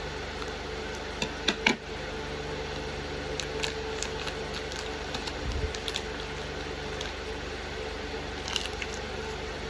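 Small plastic packaging and toy pieces being handled: scattered crinkles and sharp clicks, loudest in a quick cluster about one and a half seconds in, over a steady low hum.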